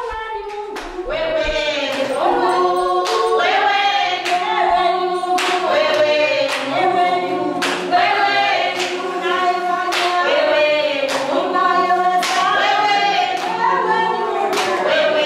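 A group of voices singing together unaccompanied, with hand claps keeping a steady beat of about two claps a second.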